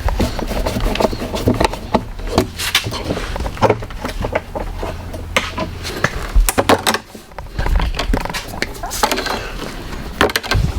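Irregular knocks, taps and clatter of objects being handled, over a low steady hum.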